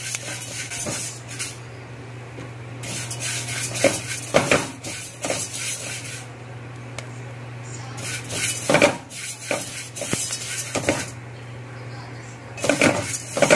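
Flax seeds being stirred and scraped around a metal pot with a spatula while they dry-roast, in several spells of rustling and scraping with short pauses between. A steady low hum runs underneath.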